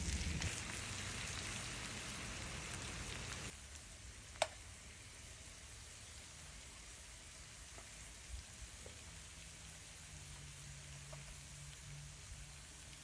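Steak bites and potatoes sizzling faintly in garlic butter in a frying pan, cutting off after about three and a half seconds. Then only a faint hiss, with a single sharp click.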